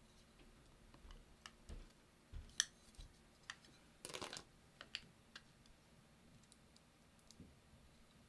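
Faint scattered small clicks and taps as the iPhone 6's flex-cable connectors are pressed and snapped onto their logic-board sockets, the sharpest click about two and a half seconds in. A brief scratchy rustle follows a little past the middle.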